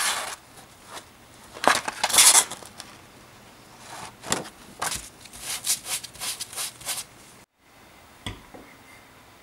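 Sheets of P180 sandpaper being handled and laid flat on a wooden workbench: irregular rustling and scraping in bursts, with a light knock near the end.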